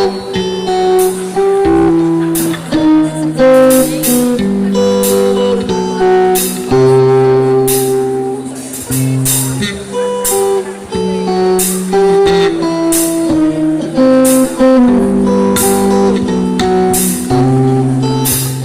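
Live band playing an instrumental intro: strummed guitar over a bass line, with sharp percussion hits on a steady beat.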